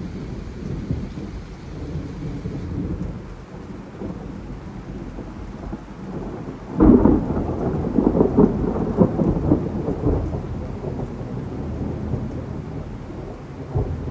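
Heavy rain falling on trees and lawn under a low, steady rumble. About seven seconds in, a loud crackling thunderclap breaks and rumbles on for about three seconds before easing back to the rain.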